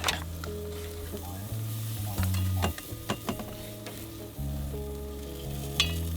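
Steaks sizzling on a barbecue grill, with a few sharp clicks, over background music.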